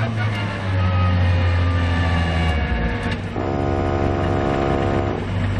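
In-car sound of a McLaren 650S GT3's twin-turbocharged V8 running at low revs as the car slows. A steady pitched hum joins in about three and a half seconds in and lasts under two seconds.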